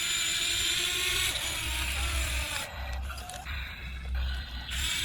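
Small electric motor and gears of a radio-controlled toy construction vehicle running, with a scraping, rubbing sound; it drops quieter for about two seconds midway, then picks up again near the end.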